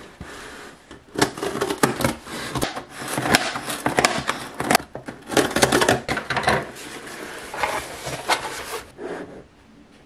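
Scissor blade drawn along the taped seam of a cardboard shipping box, slitting the packing tape in a run of irregular crackling scrapes and rips, with cardboard rubbing and tapping.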